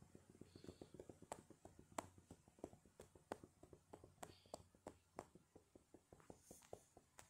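A fast, irregular run of faint clicks, several a second, some sharper than others.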